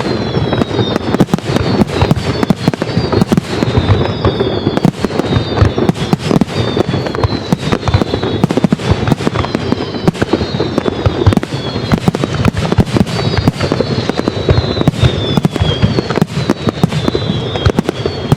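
Fireworks display: a dense, continuous barrage of bangs and crackles, with high falling whistles repeating over it every second or two.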